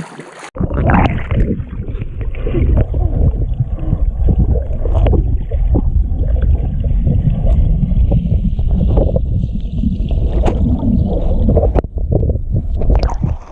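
Heavy rumble of wind on the microphone while kayaking, with water sloshing and scattered short knocks.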